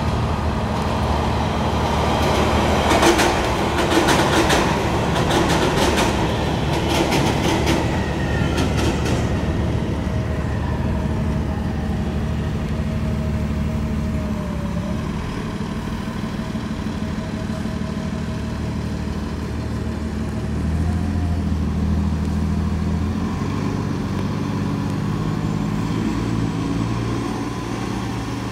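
A large vehicle's engine idling steadily at a transit station. From about 3 to 9 seconds in there is a run of rapid clicking clatter like train wheels over rail joints.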